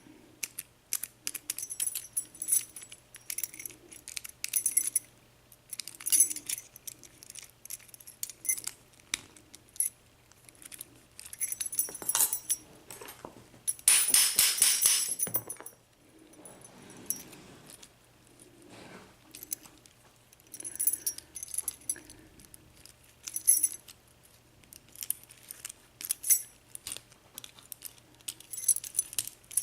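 Small metal parts of a brass Euro cylinder lock clicking, clinking and jingling as it is worked on by hand to pry off its retaining clip, with a louder scraping rattle for about a second and a half around the middle.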